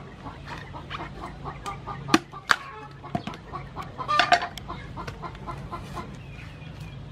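Chickens clucking, with a few sharp knocks and snaps about two to three seconds in as palm fruits are pulled off the bunch and handled.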